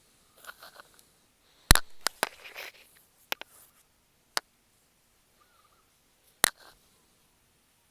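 Several sharp, irregular knocks and clicks, the loudest about two seconds in and another near the end, with faint scraping between them.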